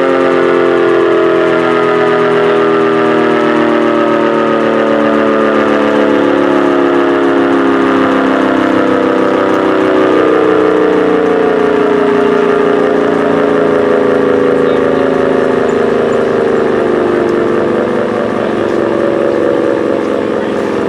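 Decot Red Arrow Model 12 mechanical siren sounding, its chord of several tones slowly falling in pitch, getting a little quieter over the last few seconds.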